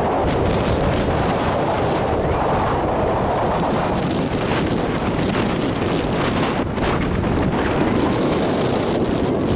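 Wind blowing across the microphone: a steady, loud rush that holds throughout with small gusty swells.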